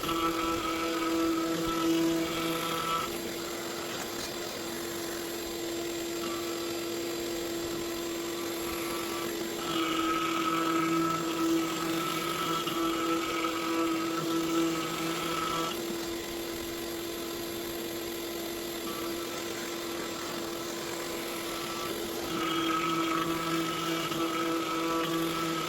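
X-Carve CNC router's spindle running steadily with a 1/4" upcut bit during the roughing pass in painted pine, a steady whine throughout. It grows louder and harsher in three stretches, at the start, from about ten to sixteen seconds in, and again near the end, as the bit cuts, and falls back to a plainer whine in between.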